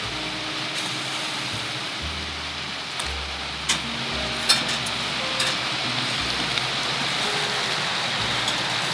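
Raw pork sizzling on a stainless wire grill over hot charcoal briquettes, a steady crackling hiss, with a couple of sharp clicks of metal tongs on the grill about midway.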